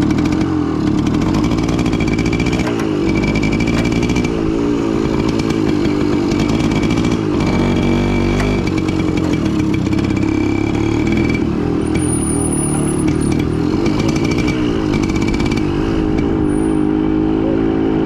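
Motorcycle engine running while riding along, its pitch rising and falling as the speed changes.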